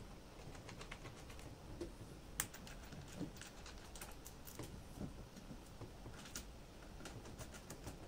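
Faint, scattered clicks and taps as cable lugs and terminal hardware are handled and fastened onto a 12 V battery's terminals.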